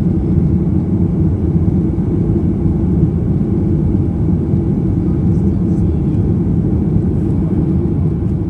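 Steady cabin noise inside a Boeing 737-800 climbing out: the low drone of its CFM56-7B engines and rushing airflow, heard from the rear of the cabin.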